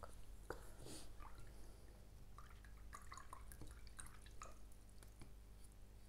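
Faint strokes of a nylon paintbrush laying wet gouache on paper: soft, scattered little brushing and dabbing sounds with small ticks.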